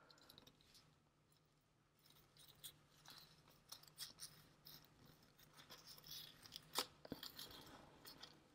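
Faint crinkling and rustling of paper being handled and folded around a small stone, with scattered small ticks and one sharper click about seven seconds in.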